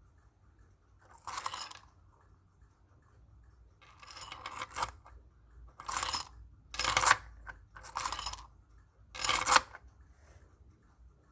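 3D-printed plastic fidget toy parts forced to slide against each other, giving six short rasping scrapes as the stringy filament strands between them break free.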